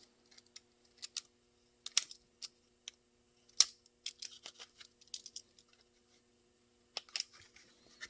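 Scattered sharp clicks and taps of hands handling a kydex holster and small tools, the loudest about three and a half seconds in, over a faint steady hum.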